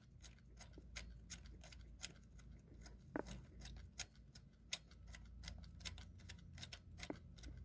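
Faint, irregular metal clicks and ticks, about four a second, from a threaded adjuster bolt being turned by hand in a homemade manual timing-belt tensioner.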